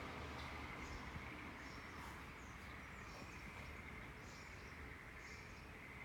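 Small birds chirping in short, high calls repeated every second or so, over a faint steady background hum.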